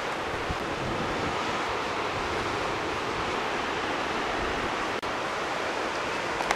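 Steady rushing of storm wind and rain during a thunderstorm, with no thunder clap standing out.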